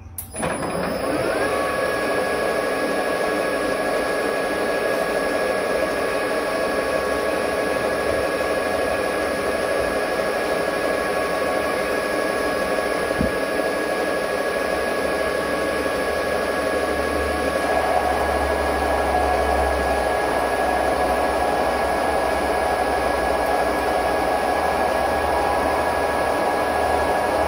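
Metal lathe starting up, its whine rising to a steady pitch within about a second, then running steadily while a cutting tool turns down a stainless steel shaft. A little past halfway the sound grows louder and rougher.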